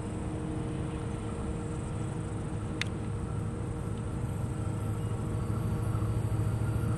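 CN SD70M-2 diesel-electric locomotive running as it leads a freight train toward the listener: a steady low engine rumble that grows a little louder near the end. A brief click about three seconds in.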